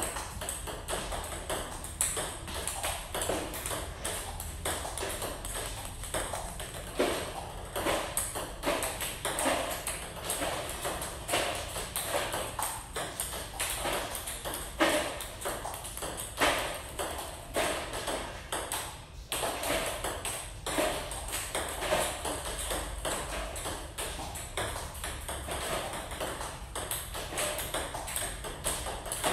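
Table tennis ball hit back and forth in a practice rally, clicking off the paddles and bouncing on the table in a quick, regular rhythm of a few clicks a second.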